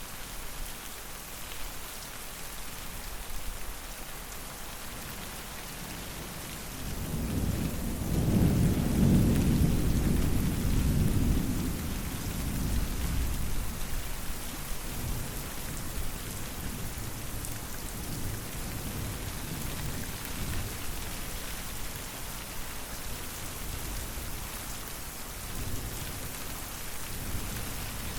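Steady rain falling, with a long, low roll of thunder that builds about a quarter of the way in, rumbles for several seconds and fades back under the rain. A fainter rumble comes near the end.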